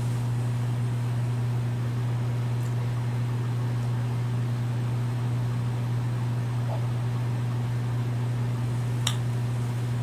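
Slot-loading DVD drive of a white 2010 MacBook spinning the Mac OS X install disc during a DVD boot, a steady low hum. A faint click about nine seconds in.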